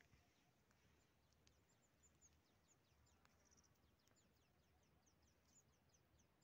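Near silence, with faint birds chirping: a quick series of short, falling high notes, about three or four a second.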